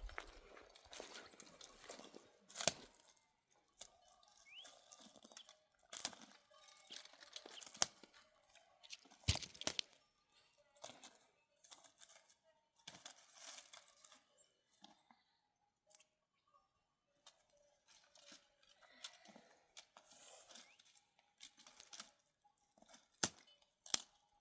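Irregular handling sounds: rustling and crinkling with scattered sharp clicks and taps.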